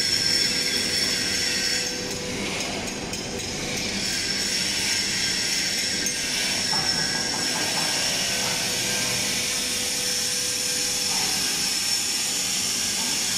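Workshop noise in a truck-body fabrication shop: a continuous machinery din with a steady high whine, and some metalwork clatter a couple of seconds in and again around the middle.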